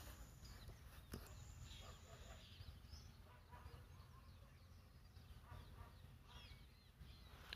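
Near silence: faint room tone with a few faint, short high chirps scattered through it.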